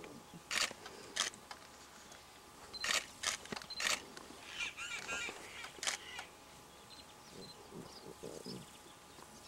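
Camera shutter clicks from an SLR, about six single shots at irregular intervals, with a brief high squeaky call about halfway through.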